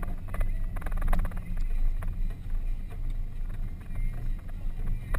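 An off-road vehicle heard from inside the cabin as it drives over a rough dirt track: a low engine and drivetrain rumble, with frequent irregular knocks and rattles from the bumps.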